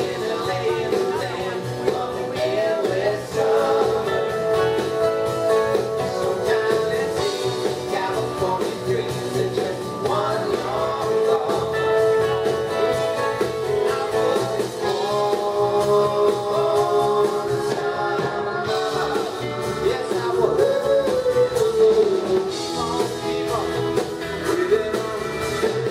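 Live rock band playing, with acoustic and electric guitars, bass and drums, and a man singing lead.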